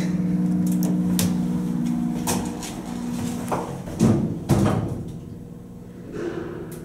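Kone traction elevator car doors closing after a floor call. A steady low hum with a few light clicks stops about three and a half seconds in, followed by two thuds about a second later as the doors shut, then quieter running.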